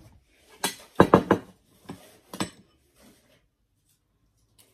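A metal spoon clinking and scraping against a ceramic bowl. A loud cluster of clinks comes about a second in, then a few lighter clinks over the next second and a half.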